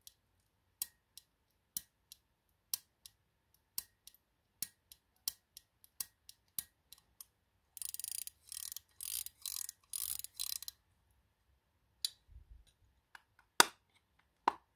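Antique silver-cased chronograph pocket watch being worked by hand: a sharp click about once a second, each followed by a softer click, as the chronograph pusher in the crown is pressed and released. After that comes about three seconds of rapid, scratchy clicking, and near the end two loud snaps as the case closes.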